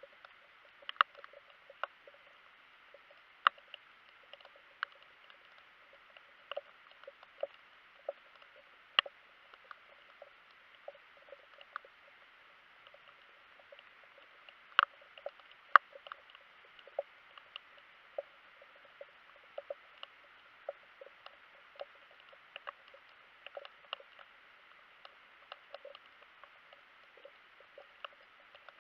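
Underwater ambience: a faint muffled hiss with many irregular sharp clicks and ticks, a few much louder than the rest, as heard by a camera under the sea.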